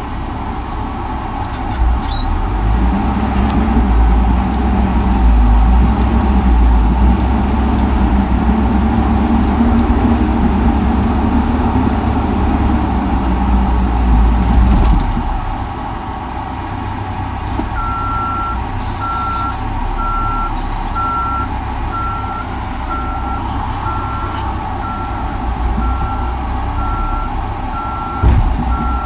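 Cat 420E backhoe loader's diesel engine working hard under load, then easing off about halfway through. Its reversing alarm then starts beeping steadily, about one and a half beeps a second. A single clunk comes near the end.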